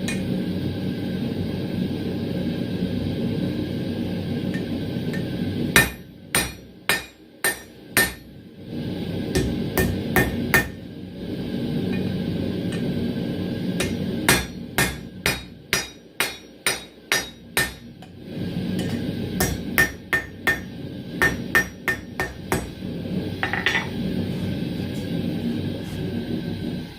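A hand hammer striking a hot 10 mm square steel tong blank on an anvil in three runs of about ten quick blows each, cleaning up the blank's shape. A steady low rumble fills the gaps between the runs.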